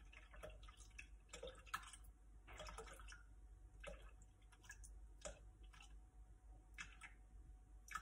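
Faint, irregular drips and small clicks of whole cream dripping from a carton into a Thermomix bowl.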